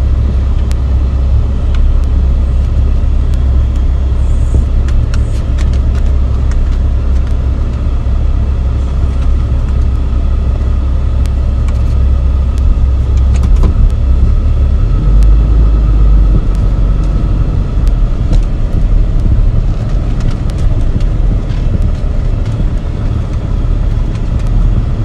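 Diesel pickup truck running at low speed as it is driven back and forth over fresh gravel to pack it down: a steady low drone whose pitch drops about halfway through, with scattered light ticks over it.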